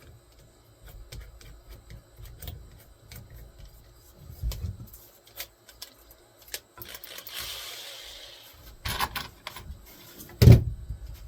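Workshop handling noises: light clicks and rattles, a knock about halfway through, a brief scraping hiss, then two heavy thumps near the end, the last the loudest.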